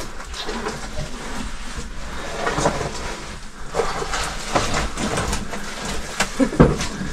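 A caver crawling on hands and knees through a tight, muddy cave passage: irregular scraping and shuffling of suit, gloves and knees on mud and rock, with a few louder knocks near the end.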